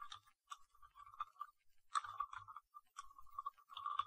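Typing on a computer keyboard: a faint run of irregular keystroke clicks with brief pauses between groups.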